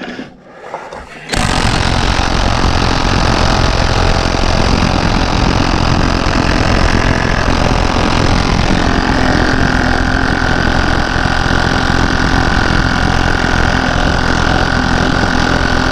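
Cordless impact wrench hammering continuously on a seized lug nut, starting abruptly about a second in and held on steadily, with a steady higher tone coming in about halfway through.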